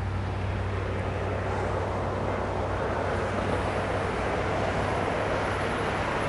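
Steady, even rumble of an approaching Union Pacific diesel locomotive heard from a distance, with a constant low hum under a wind-like noise.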